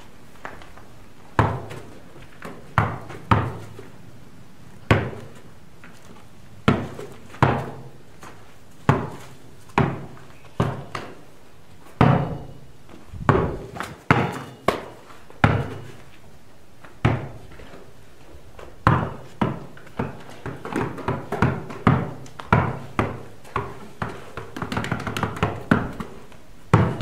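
A rubber ball bounced again and again on the ground, each bounce a hollow thump, irregularly about once a second and coming quicker and softer near the end.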